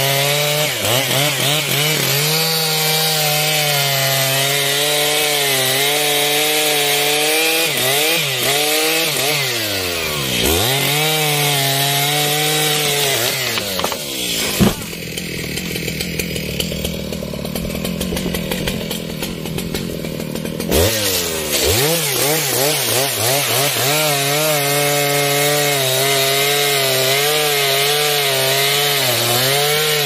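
Two-stroke Stihl chainsaw at full throttle cutting through a thick trembesi trunk, its engine pitch dipping and recovering as the chain bogs in the wood. About fifteen seconds in there is a sharp crack, then about six seconds of rushing noise without the engine, before the saw is heard cutting again.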